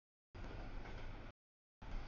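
Rolling noise of a CSX double-stack intermodal freight train passing over a grade crossing, a steady low rumble with no bell or horn. The audio drops out to dead silence at the start and again about a second and a third in, returning near the end.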